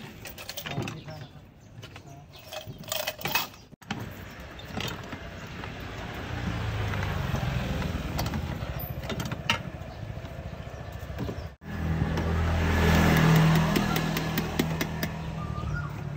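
A few sharp knocks of a knife cutting limes on a board, then a steady rumble of street traffic with a motorbike engine running close by, loudest in the last few seconds.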